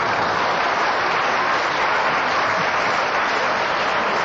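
Studio audience applauding, a steady sustained wash of clapping.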